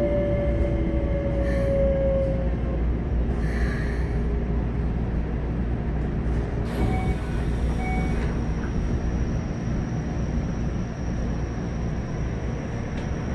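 Keikyu 600 series train's Mitsubishi GTO-VVVF inverter whine sliding down in pitch and fading out in the first few seconds as the train brakes, over steady wheel and rail rumble from inside the car. About seven seconds in comes a broad hiss of air lasting about a second, with two short beeps.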